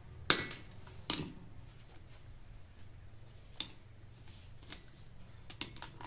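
Sharp metallic clicks and clinks from end-cutting nippers snipping copper wire and from hand tools and small copper pieces set down on a steel anvil. There are two loud ones with a brief ring about a third of a second and a second in, a lighter click midway, and a quick cluster near the end, over a low steady hum.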